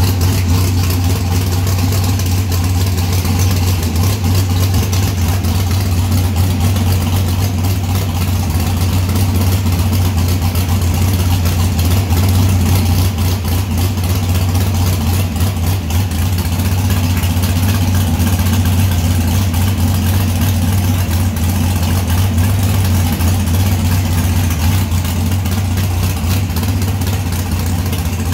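Front-engine dragster's carbureted V8, with a tunnel-ram intake and twin carburetors, running at a steady, loud idle with no revving.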